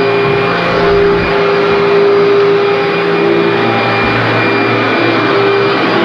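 Commercial upright vacuum cleaner running on carpet: a loud, steady motor hum with a constant whine as it is pushed along, drawing dry soil out of the carpet before cleaning.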